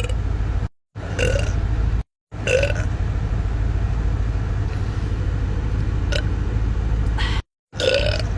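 Several short burps from a person in quick cut-together clips, one about a second in, another near two and a half seconds and a last one near the end, over a steady low rumble.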